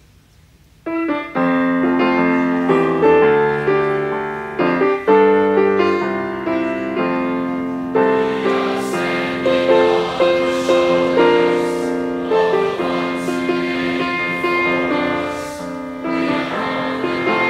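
Piano-led hymn music starting about a second in after a brief pause, with sustained chords and a melody line. From about eight seconds in it grows fuller, with a steady beat.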